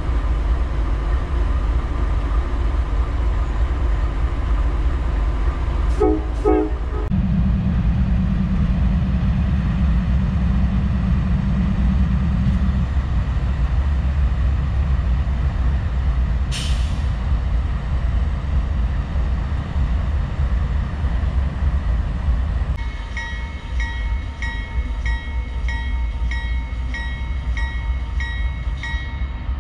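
CSX diesel-electric locomotives idling with a steady low rumble. A brief high squeal comes about midway, and a regular ringing pulse about twice a second runs over the last seven seconds.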